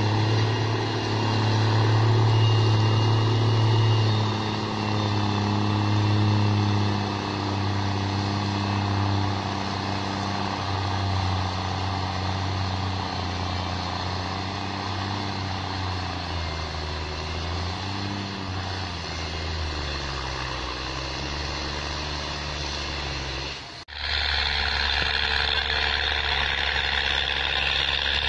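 New Holland TS6.125 tractor's diesel engine running under load while pulling a plough. Its note wavers and sinks in the middle. Near the end it breaks off for an instant and returns steadier, with more hiss.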